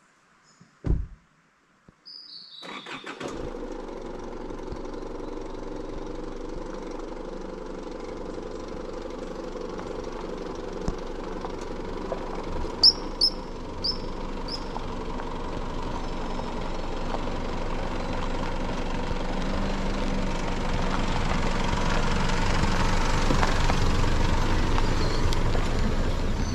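A four-wheel-drive's engine comes in suddenly about two seconds in, then runs steadily and grows louder as the vehicle comes down the dirt track toward the microphone and passes close by near the end. A few short high chirps sound about halfway through.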